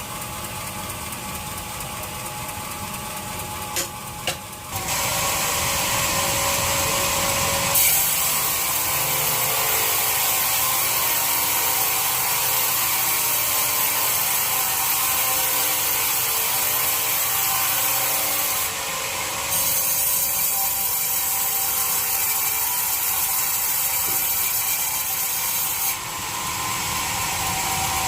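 Sawmill bandsaw cutting through a teak log: a steady hiss of the blade in the wood, stepping up in level about five seconds in and again a few seconds later, after two sharp knocks, with brief dips in level later on.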